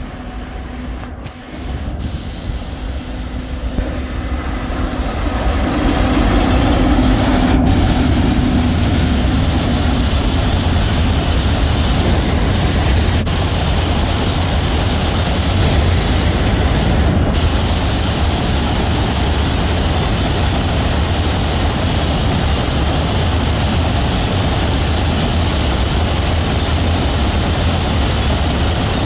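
ONCF E-1100-series electric locomotive approaching and passing below with a low hum, followed by a long train of loaded phosphate wagons rolling by. The sound grows over the first six seconds, then settles into a steady rumble of wheels on rails.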